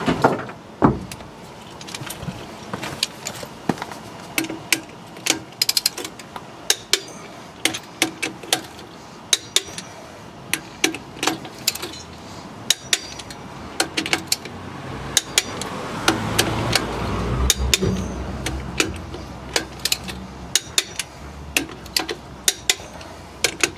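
Torque wrench ratcheting and clicking on the wheel lug nuts of a 1963 Chevrolet one-ton dually truck, a run of sharp irregular clicks; the nuts are already snug at the set torque of about 120–130.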